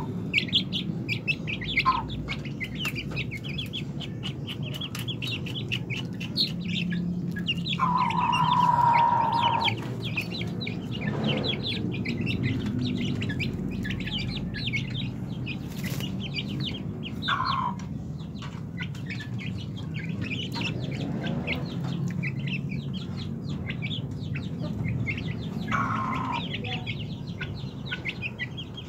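Young Pelung chickens peeping and cheeping continuously in rapid short high chirps, with one louder, longer call of about two seconds about eight seconds in.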